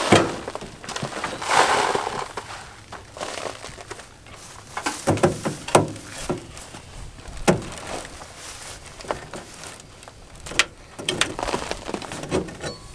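Haul-Master truck bed cargo unloader being fitted and cranked: scattered metal clicks and knocks at irregular intervals, after a short rushing noise in the first two seconds.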